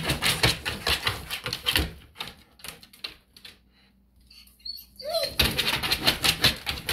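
A Rottweiler's claws scratching and clicking rapidly on a linoleum floor as it paws and stamps at a laser dot, in two bouts with a quieter pause between them. A short dog whine comes near the end of the pause.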